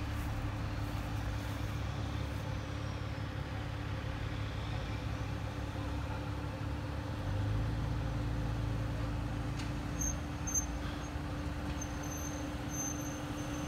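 Steady low rumble of slow-moving road traffic: a towed aluminium horse trailer rolling past, followed by a line of cars driving by at walking pace.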